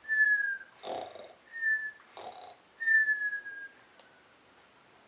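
A person imitating cartoon snoring: three cycles of a rough, noisy in-breath, each followed by a whistled out-breath that falls slightly in pitch. The last whistle is the longest.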